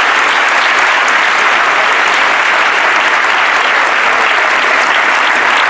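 A large crowd applauding with sustained, steady clapping.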